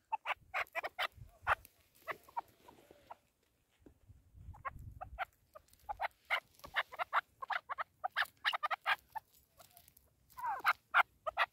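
Chukar partridge calling: runs of short, repeated clucking notes. They pause for a couple of seconds in the middle, then come back faster and denser, with a louder call near the end.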